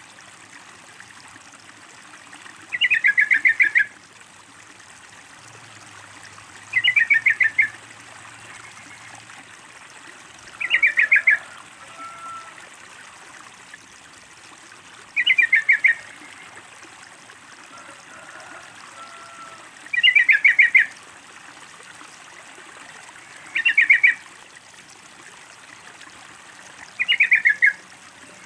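Yellow-vented bulbul (trucukan) calling: a rapid chatter of notes about a second long, repeated seven times roughly every four seconds. A faint steady trickle of water runs underneath.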